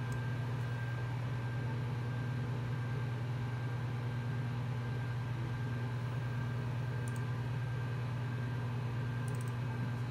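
An IBM PC XT 5160 running, a steady hum from its power-supply fan and its spinning Seagate ST-412 hard drive. A few faint clicks come about seven and nine seconds in.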